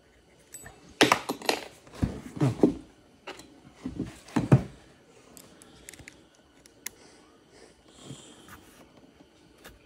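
Hand-tool work on a motorcycle handlebar grip: clicks and knocks of a 3 mm Allen key and hands working the grip, with a run of louder knocks and handling bumps in the first half, then only a few light clicks.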